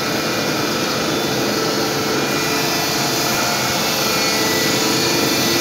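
Automatic film lamination machine running steadily: a constant mechanical hum and hiss from its motors and rollers, with faint steady tones.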